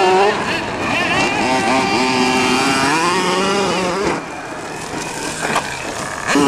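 Small two-stroke engine of a radio-controlled monster truck revving up and down as it drives, its pitch rising and falling with the throttle; it eases off a little past four seconds in.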